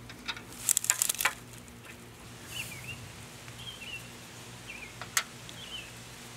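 A quick run of sharp clicks in the first second or so as a washer and pin are fitted by hand under a riding mower deck, and one more click about five seconds in. A few short bird chirps come in between.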